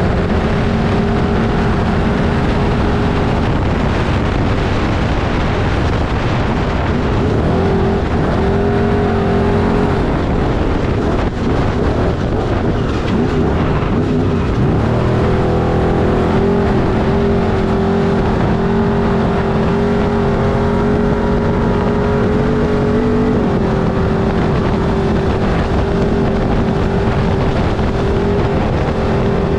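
Off-road race vehicle's engine running at high, mostly steady revs, with a few brief drops and a sweep in revs about halfway through, over constant rushing noise.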